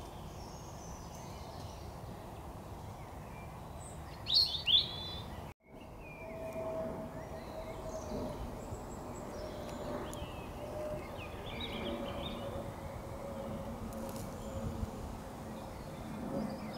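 Outdoor ambience of small birds chirping over a steady low rumble, with two loud bird calls in quick succession about four seconds in. After a brief dropout, a faint steady hum runs under the birdsong.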